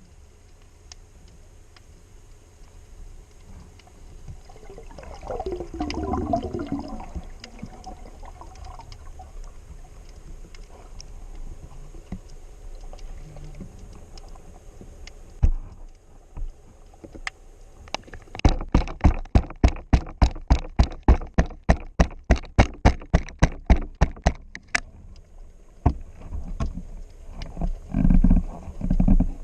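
Underwater sound through a camera housing: faint scattered crackling clicks, then a fast, even run of sharp knocks, about five a second, lasting some six seconds, followed by a few low thumps near the end.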